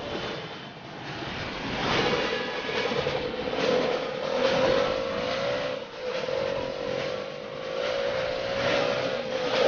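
Motor rickshaw's engine running as it drives through traffic, a steady engine note that wavers slightly in pitch, with street traffic noise around it.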